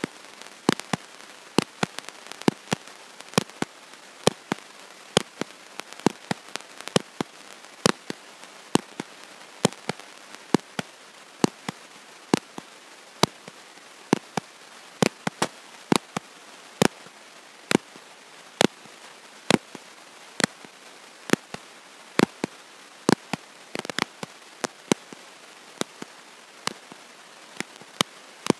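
Sharp irregular clicks, about two a second, over a steady hiss, with a short denser crackle near the end, and no speech heard: crackle from a faulty audio recording.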